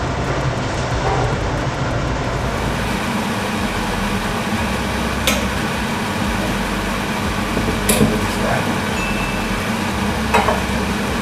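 Cooked spaghetti being drained at a stainless steel sink: a steady hiss of water pouring and splashing, with three sharp clinks of the metal mesh strainer against the pan.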